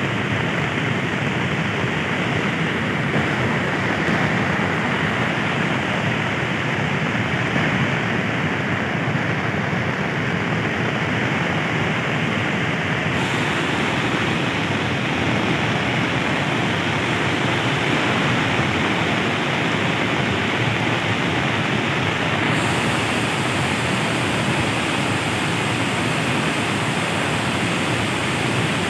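Muddy floodwater of a swollen river rushing steadily as it pours over and around the broken concrete remains of a bridge.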